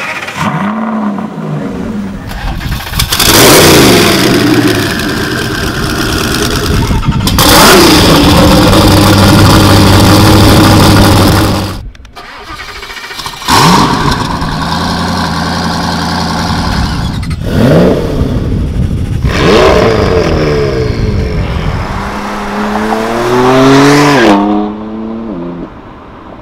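Supercar engines revving and accelerating hard in a string of separate clips, including an Aston Martin Vantage S and an SSC Ultimate Aero. There are sharp revs, a long loud pull held at high revs, and a climbing engine pitch as a car accelerates hard near the end.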